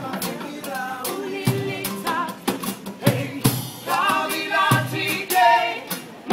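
Live street band playing: two acoustic guitars strummed, a small drum kit keeping the beat, and a woman singing the melody.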